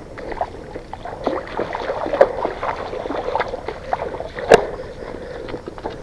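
Footsteps wading along a shallow rocky stream, splashing through the water in an irregular walking rhythm, with one louder splash about four and a half seconds in.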